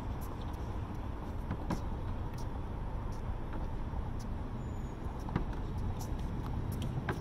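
Tennis balls struck by rackets and bouncing on a hard court during a doubles rally: scattered sharp knocks over a steady low outdoor rumble.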